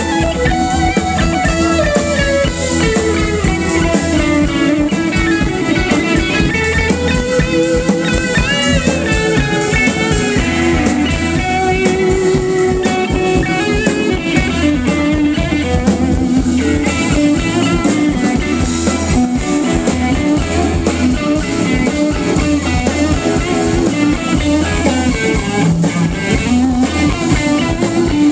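Live band of electric guitar, drum kit and keyboard playing, the guitar leading with bending melodic lines over a steady drum beat.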